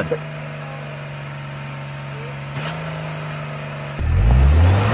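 Off-road vehicle engine running at a steady pitch. About four seconds in, a louder engine revs up, its pitch rising.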